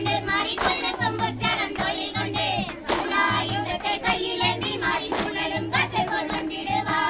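Tamil kummi folk song with singing over a steady beat, and sharp hand claps from the dancing circle about once a second.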